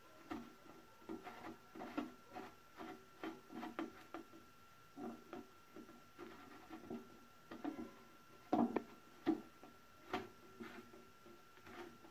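A panel indicator light being twisted and worked into its hole in a metal enclosure lid: a run of irregular small rubs and clicks, several a second, with two louder knocks a little past the middle. A faint steady high tone runs underneath.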